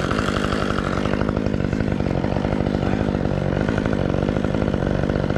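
Chainsaw engine running steadily.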